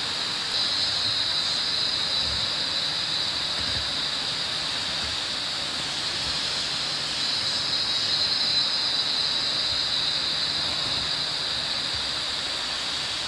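Steady high-pitched insect drone over the constant rush of a river in tropical rainforest.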